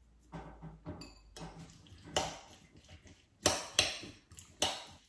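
Metal spoon stirring chopped salsa in a ceramic bowl: soft wet scraping, then several sharp clinks of the spoon against the bowl, loudest in the second half.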